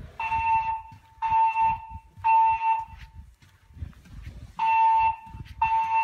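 Fire alarm speakers of a Siemens MXL-V voice-evacuation system sounding the temporal-three evacuation tone: three half-second beeps, a pause, then the next group beginning. This tone alternates with the recorded evacuation message.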